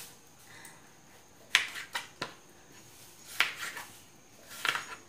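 Kitchen knife cutting peeled breadfruit on a cutting board: about five sharp chops at uneven intervals.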